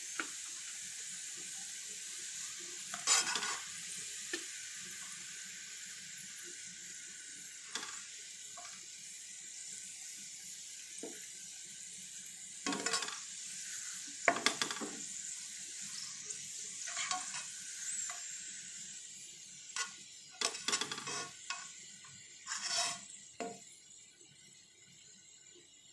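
Sliced onions frying in hot oil in a non-stick wok with a steady sizzle, browning toward golden. A spatula stirs and scrapes against the pan every few seconds, and the sizzle fades toward the end.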